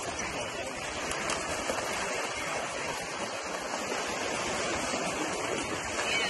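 Small sea waves washing onto a beach, a steady rushing of surf in the shallows.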